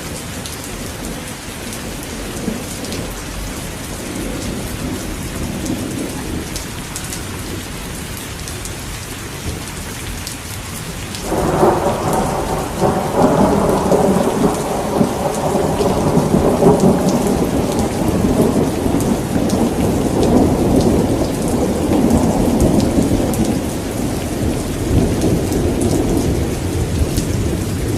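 Steady rain with a long roll of thunder that breaks in suddenly about eleven seconds in and rumbles on before easing off near the end.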